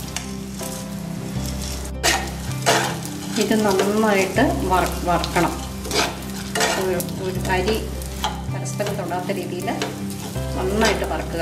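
Long-grain rice being stirred and fried in a nonstick pan with a metal slotted spoon: repeated scraping strokes of the spoon against the pan, with light clinks, busiest about three to six seconds in.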